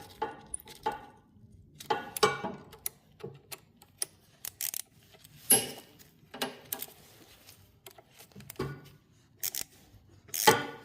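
Hand tools and small metal parts clinking and knocking on a snowblower's engine sheet metal: irregular short clicks and clanks, a few ringing briefly, with one louder clank about five and a half seconds in and another near the end.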